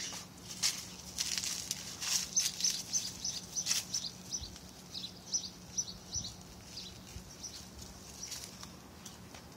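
Small birds chirping rapidly, mixed with the crackle and rustle of dry leaves and grass as a dog noses through leaf litter.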